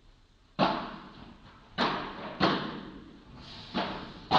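Padel rally: five sharp pops of the ball off the rackets and court, irregularly spaced, each ringing out in the enclosed hall.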